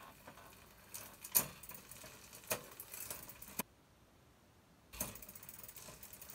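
Bicycle drivetrain turned by hand during a gear check: the chain running through the rear derailleur and the rear freewheel ratchet ticking, with several sharper clicks. It stops for about a second midway and starts again.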